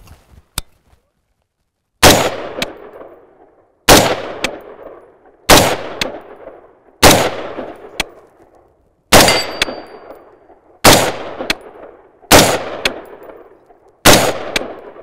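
Battle Arms Development Workhorse AR-15 rifle in .223/5.56 firing eight single shots in slow aimed fire, one about every one and a half to two seconds, each report trailing off over about a second.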